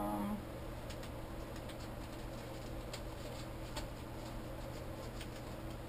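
Faint scattered taps and paper handling as papers are sorted through on a craft table, over a steady low hum.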